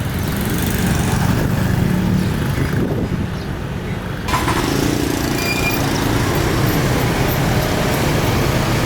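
Street traffic noise: a steady hum of motor vehicles running.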